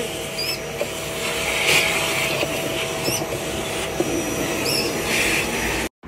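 Vacuum cleaner running steadily, with a constant hum under its noise, while a canary gives three short chirps.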